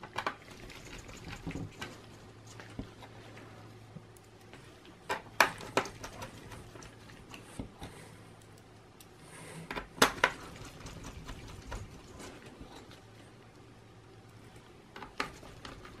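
Small clicks and taps of a hand screwdriver and small screws against the bottom cover of a Dell Latitude E6320 laptop as the cover screws are put back in, with a few sharper clicks near the middle.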